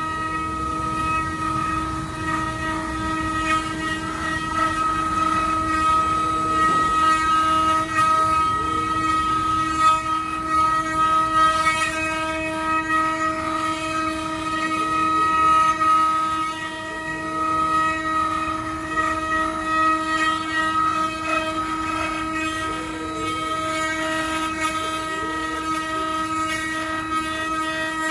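Multi-spindle 4-axis CNC wood router running, its spindles whining at a steady pitch while the cutters carve solid wood blanks, with the rough, uneven noise of the cutting underneath that swells and eases.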